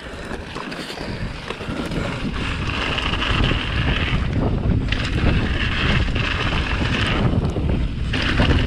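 Wind rushing over the microphone and mountain bike tyres rolling fast over a dirt trail, growing steadily louder as speed builds on a descent.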